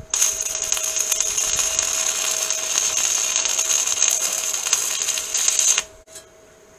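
Angle grinder grinding steel, a loud steady burst of just under six seconds that starts and stops abruptly.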